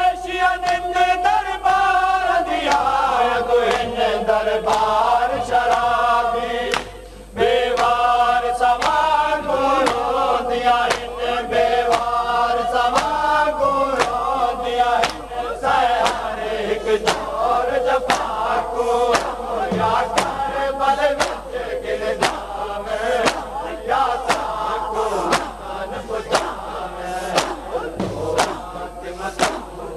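Men's voices chanting a noha, a Shia mourning lament, led by a reciter at the microphone, over a steady rhythm of sharp slaps from chest-beating (matam).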